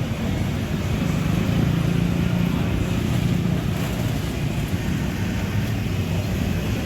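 Steady road traffic noise: engines and tyres of passing vehicles, with no clear siren tone.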